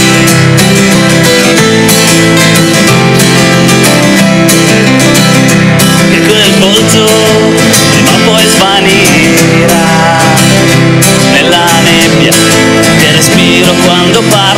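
Two acoustic guitars strummed together in a steady rhythm. About six seconds in, a man's singing voice comes in over them.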